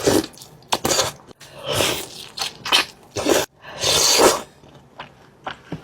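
Close-miked eating of crispy fried chicken: crunching bites and chewing, heard as a run of short crunchy bursts, about six of them.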